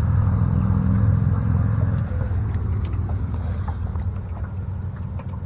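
Boat motor running steadily with a low rumble, easing off slightly toward the end, with a small click about three seconds in.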